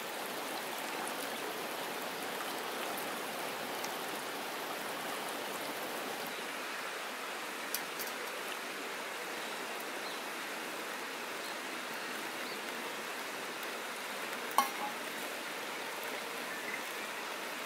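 Shallow stream rushing steadily over pebbles, with one sharp click late on.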